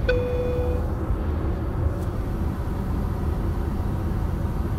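Steady low drone of an airliner cabin in flight, with a single electronic chime from the cabin PA right at the start that rings for under a second.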